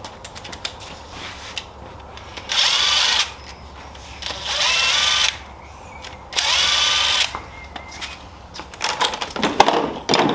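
Handheld power tool run in three short bursts of about a second each, its motor rising in pitch as it spins up, likely working bolts on a 6.0 LS engine during teardown. Near the end come several sharp metallic clicks and knocks.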